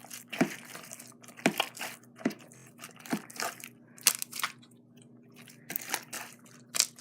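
Sticky slime being kneaded and pulled by hand while it is activated with laundry detergent, giving irregular wet crackles and pops every half second or so as it pulls together.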